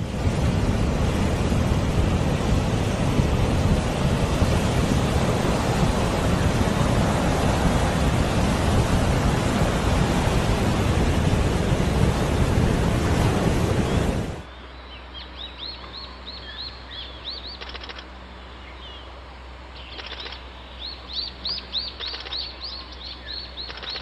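Ocean surf breaking on rocks, loud and continuous, until it cuts off abruptly about 14 seconds in. After that, a quieter background of small birds chirping in quick repeated series over a faint low hum.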